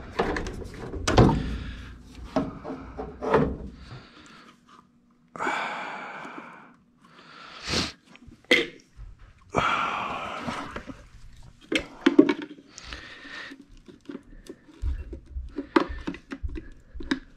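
Hand-handling of plastic furnace condensate-trap parts: irregular plastic clicks and knocks, with two stretches of rustling hiss about five and ten seconds in.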